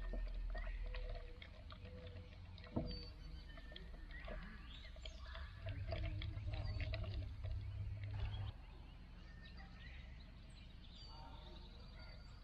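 Metal spoon stirring a drink in a metal camp mug, light clinks against the sides with one sharper tap about three seconds in. Birds chirp in the background and a low rumble comes and goes.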